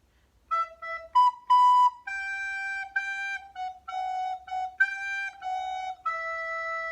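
A recorder playing a simple melody of about a dozen clean single notes, ending on a long held E.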